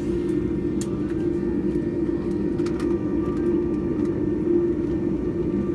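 Steady cabin rumble inside a Boeing 787-9 airliner on the ground after landing, with engines and air conditioning running, and a couple of light clicks.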